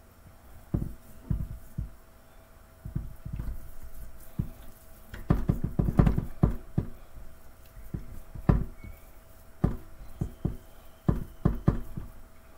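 Hands rubbing, patting and pressing seasoning into a rack of ribs on a metal sheet pan: irregular soft thumps and knocks of meat and pan, bunched thickly about halfway through and scattered after.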